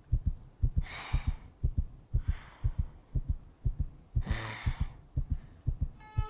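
A heartbeat sound effect: steady low lub-dub thumps, about one and a half beats a second, the woman's racing heart heard as the man leans in close. Three soft breaths come between the beats.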